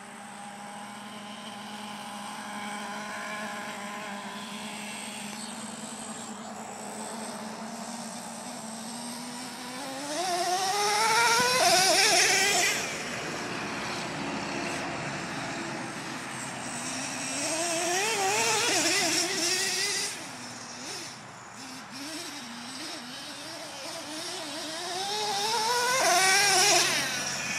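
Traxxas T-Maxx 3.3 nitro RC truck's small two-stroke nitro engine running steadily, then revving up hard three times (about ten seconds in, near the middle and near the end), its whine climbing and wavering in pitch each time as the truck accelerates.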